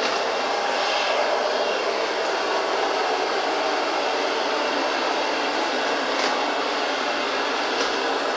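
GRUNDIG VCR 2330 robot vacuum cleaner running: a steady hiss and whir from its suction motor and brushes, with a couple of faint ticks near the end.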